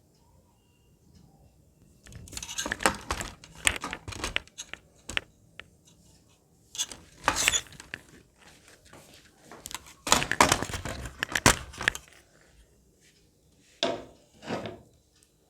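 A utensil scraping and clattering against a cooking pan holding thick, freshly cooked halwa, in four short bouts separated by quiet.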